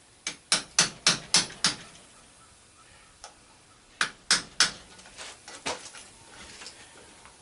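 Hammer striking a metal punch to tap a part out of an angle grinder: a quick run of about six sharp metallic blows, three more about four seconds in, then a few lighter taps.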